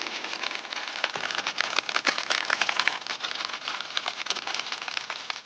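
Food sizzling in hot oil: a dense, continuous crackle of spattering pops over a hiss, busiest and loudest around two to three seconds in.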